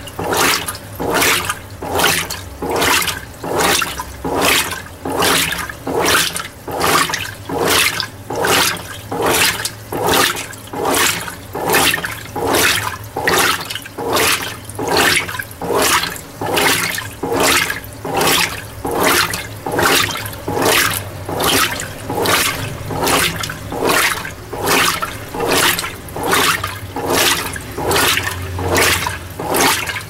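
Mueller Energy 8 kg top-load washing machine agitating a small load of white clothes in water. The water swishes and sloshes in a regular rhythm, about once a second, as the agitator turns back and forth.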